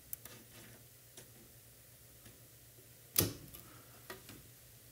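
Locking C-clamp pliers being set on an aluminium plate: a few faint metal ticks, then one sharp snap about three seconds in as a clamp locks shut, and a softer click a second later.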